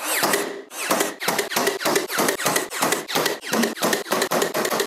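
A rapid, even run of sharp nail-gun shots, about five a second, from a Ryobi cordless nailer driving nails into wood trim.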